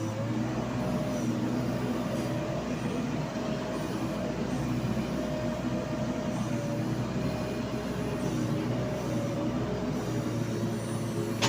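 JCB 3DX backhoe loader's diesel engine running steadily under working load, with a wavering hum over the engine noise. A single sharp click near the end.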